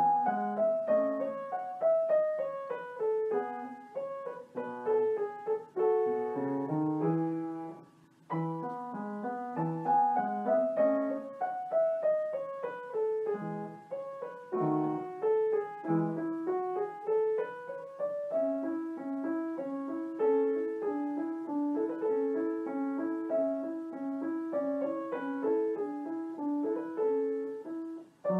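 Background piano music: descending runs of notes, a short pause about eight seconds in, then a steady rocking figure of alternating notes in the second half.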